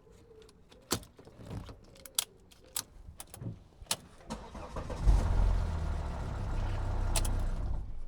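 Several sharp metallic clicks, like a key and ignition lock being worked, then about five seconds in the Volvo XC90's engine starts and runs with a steady low rumble.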